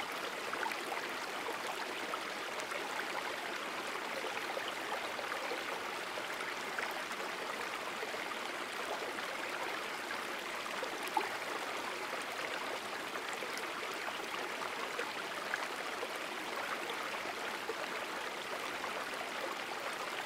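Creek water running steadily, an even rushing wash, with one faint tick about eleven seconds in.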